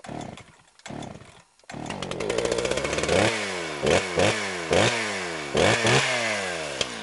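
Chainsaw engine giving a couple of short sputters, then catching about two seconds in and running, revved in a series of sharp blips that each jump up in pitch and fall back.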